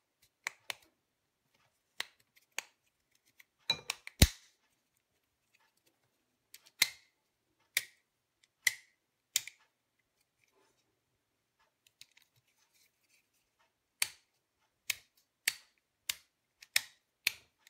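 Sharp plastic clicks and snaps from a Daewoo Nexia steering-column headlight and turn-signal stalk switch as its housing and stalk are pressed back together. A cluster of snaps comes about four seconds in and holds the loudest one. After a quiet gap, a run of clicks comes about every half second near the end.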